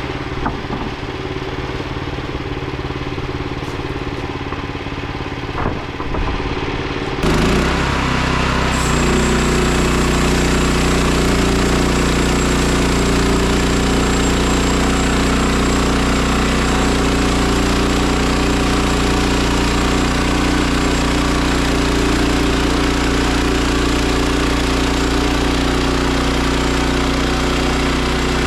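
An engine running steadily; about seven seconds in it jumps abruptly to a louder, fuller sound and then holds steady.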